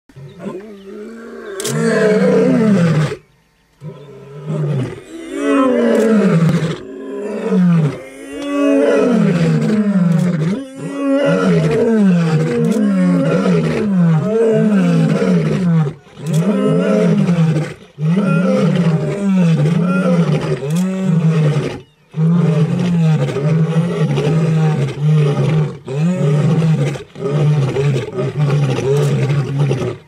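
Several male lions roaring together in chorus. A few long moaning roars give way to a long run of short grunting roars, about one a second, each falling in pitch, with the lions' calls overlapping.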